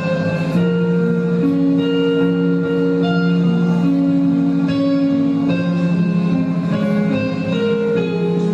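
Music with long held notes in several parts, changing every second or two, and a plucked, guitar-like accompaniment.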